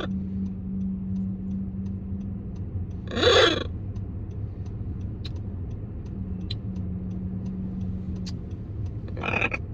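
A macaw lets out one loud, harsh squawk about three seconds in and a shorter call near the end, over a steady low hum with faint regular ticking.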